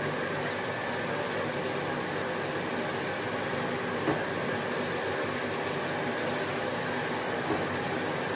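Steady, even hiss of kitchen background noise, with two faint light clicks about four and seven and a half seconds in.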